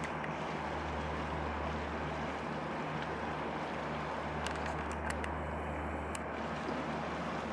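Steady low drone of a boat engine, with wind and water noise over it.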